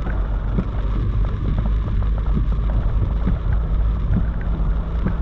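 Steady engine and road rumble heard from inside a vehicle driving through a thunderstorm, with rain ticking against the body and glass.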